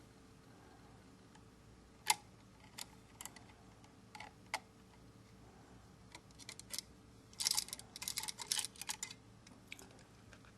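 Light clicks and taps of small hard parts being handled, a few spaced clicks at first, then a quick run of clicks about three-quarters of the way through.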